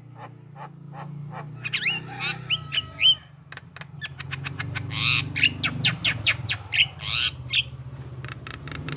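Javan myna calling: a fast run of sharp clicks mixed with short rising whistles, with harsher rasping calls about five to seven seconds in.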